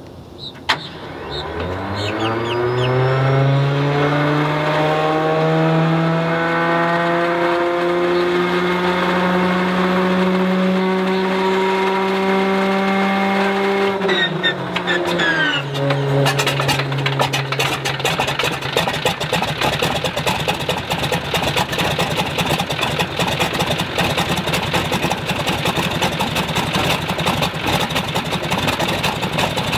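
Stinson L-1's Lycoming R-680 nine-cylinder radial being started: a click, then the starter's whine winds up over a few seconds and holds a steady pitch. About 14 seconds in it drops in pitch, and within a couple of seconds the engine catches and runs on with a steady rapid firing.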